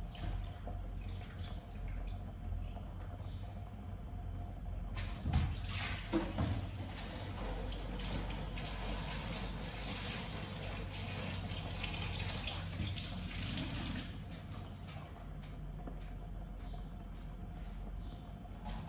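Pot of chicken soup simmering on the stove, bubbling with a fizzy hiss that is strongest through the middle. Two short knocks come about five and six seconds in.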